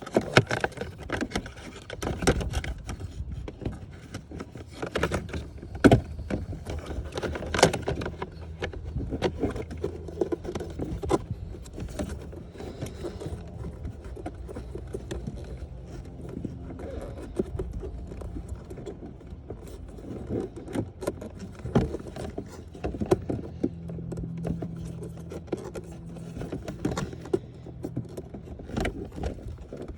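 Plastic dashboard trim pieces clicking, knocking and rattling as they are handled and slid back into place, with a steady low hum underneath.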